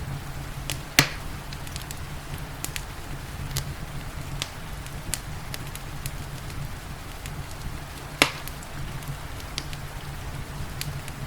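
Wood fire crackling in a fireplace, with scattered small snaps and two loud pops, about a second in and again about eight seconds in, over a steady low rumble and a soft hiss of rain.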